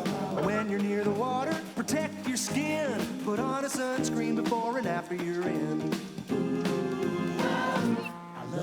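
Music: a children's song, a melody over instrumental accompaniment with a steady beat.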